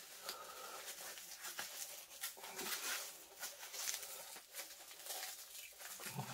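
Packing wrap rustling and crinkling in irregular little crackles as a well-packed object is unwrapped by hand.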